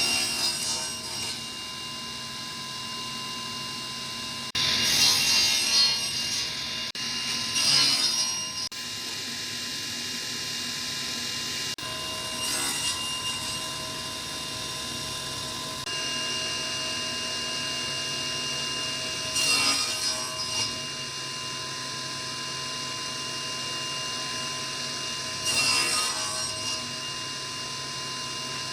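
Woodworking power tool's motor running with a steady whine, cutting into wood in about six separate bursts of a second or two each.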